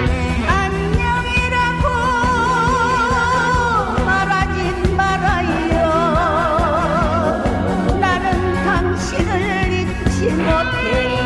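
A singer performing a Korean song with a band accompaniment and a steady beat, holding long notes with a wide vibrato.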